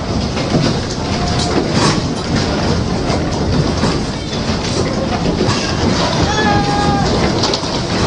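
An office tower interior shaking in an earthquake: a loud, continuous rumble full of rattling and clattering. A short pitched tone rises out of it about six and a half seconds in.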